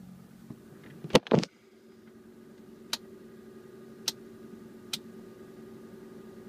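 Two loud knocks about a second in as the filming phone is handled and set down, then a low steady hum with a few sharp single clicks about a second apart.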